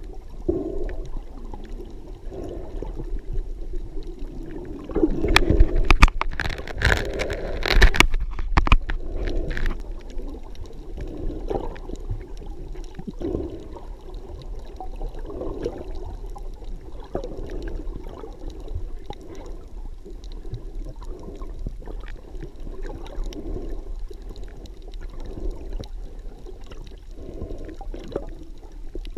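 Muffled water sloshing and gurgling heard through a submerged camera, swelling and fading every couple of seconds. A burst of sharp knocks and splashes comes about five seconds in and lasts a few seconds.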